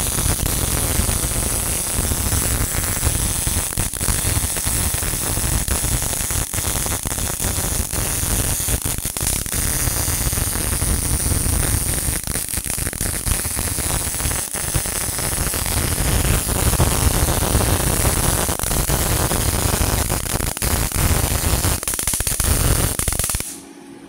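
MIG welding arc crackling steadily as a torch on a motorised carriage runs an automatic bead, set at about 95 A and 19 V. The arc cuts off suddenly about half a second before the end.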